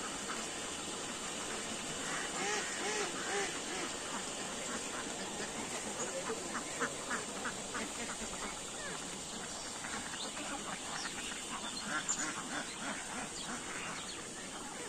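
A flock of domestic ducks quacking, many short calls overlapping throughout, with a clearer run of calls about two and a half to three and a half seconds in.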